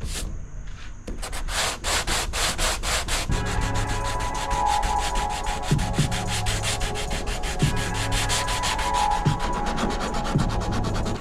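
Rapid rubbing strokes of sanding on a fiberglass hood repair. Background music with a repeating bass beat comes in about three seconds in.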